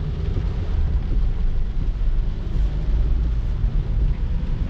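Steady low rumble of a car on the move: engine and tyre noise on wet road, with no distinct events.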